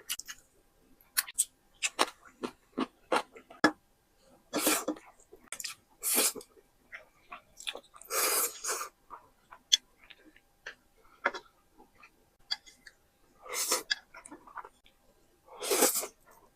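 Close-miked eating: chewing with many short, sharp wet clicks, and louder mouth sounds of half a second to a second every few seconds.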